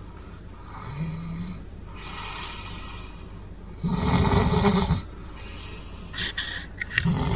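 A person snoring: a string of heavy snores every couple of seconds, loudest about four seconds in and again at the end, with a few short clicking snorts just before the last one.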